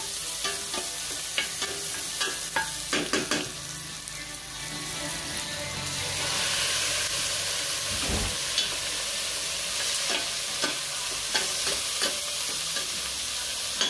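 Onion and garlic sizzling in oil in a stainless steel pot, with a metal spatula scraping and clicking against the pot. About six seconds in, raw pork goes in and the sizzle grows louder, with a low thump a couple of seconds later, followed by more spatula clicks as it is stirred.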